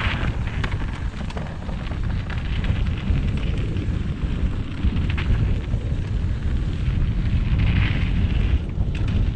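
Mountain bike descending a rough dirt trail: a steady rumble of wind buffeting the microphone and tyres over dirt and rock, with scattered rattles and clicks of the bike's chain and frame.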